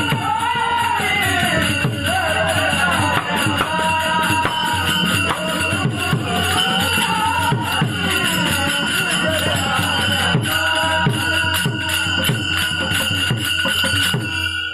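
Pakhawaj barrel drum played with the hands in a fast, dense run of strokes, over a continuous metallic jingling and ringing of hand cymbals, with voices singing a devotional chant.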